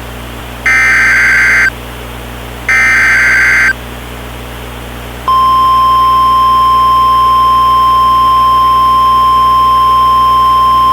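NOAA Weather Radio emergency alert signal: two one-second bursts of SAME digital header data, a second apart. About five seconds in, the steady single-pitch 1050 Hz warning alarm tone begins and holds. It signals that a tornado warning broadcast is starting.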